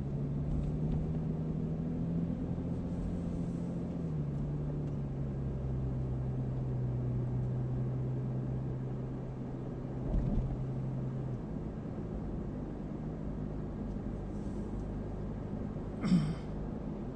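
Car engine and road noise heard from inside the cabin while driving. There is a steady engine hum whose pitch steps down about four seconds in and fades out just past the middle, a low bump in the middle, and a short sharp sound near the end.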